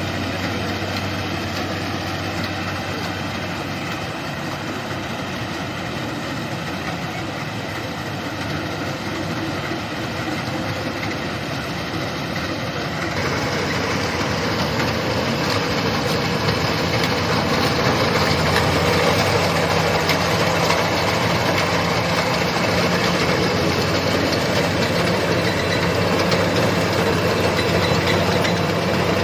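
Combine harvester working a rice paddy, its diesel engine and threshing machinery running steadily; about halfway through the sound broadens and grows louder.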